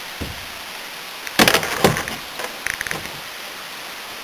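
Two sharp knocks about a second and a half in, followed by a short run of light clicks and rattles: hand tools and parts being handled and set down.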